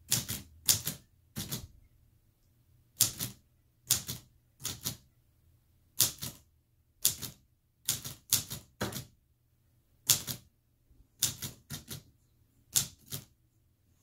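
Old manual portable typewriter, its keys struck one at a time by a single finger. About seventeen sharp clacks come at a slow, uneven pace, with short pauses between groups.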